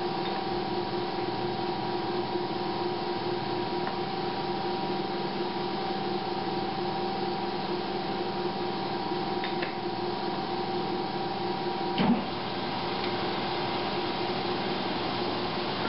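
Milling machine running, its small disc cutter taking a side cut in a metal workpiece: a steady machine hum with a held whining tone. A short knock comes about twelve seconds in, and the higher tone then fades.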